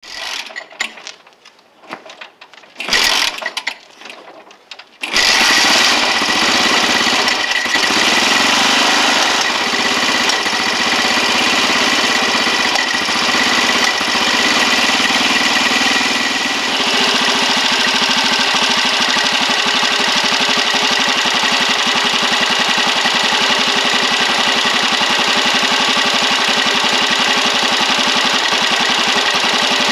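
Honda Dream 4E's single-cylinder four-stroke engine being kick-started: a few short bursts of noise, then it catches about five seconds in and runs on steadily with an even, rapid beat. Its tone shifts slightly a little past halfway.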